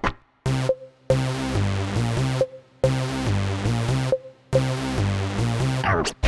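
Electronic music with synthesizer and drum-machine sounds, broken by several abrupt silent gaps.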